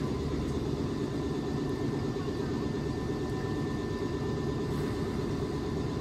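Steady low hum of electric commuter trains standing at a platform with their onboard equipment running, with faint steady whines above it.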